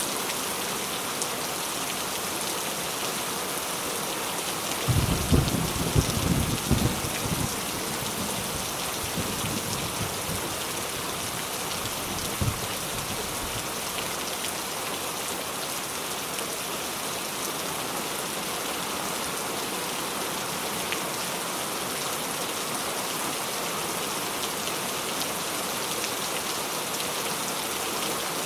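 Steady rain falling, with a low rumble lasting a few seconds about five seconds in and a brief low thump a few seconds later.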